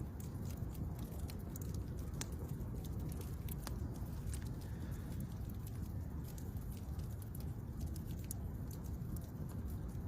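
Wood campfire burning: a steady low rumble of the flames with scattered sharp crackles and pops, a couple of them louder, about two and four seconds in.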